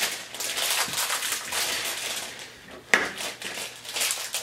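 Small craft supplies and their plastic containers being handled on a tabletop: steady rustling and light clattering, with one sharp click about three seconds in.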